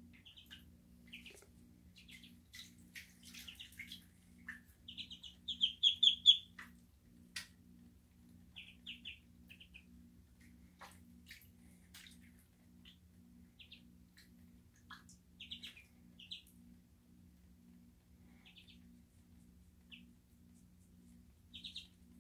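Muscovy ducklings peeping in short high bursts, loudest in a quick run of peeps about five to six seconds in, with a few light splashes from the ducklings paddling in bathtub water. A low steady hum runs underneath.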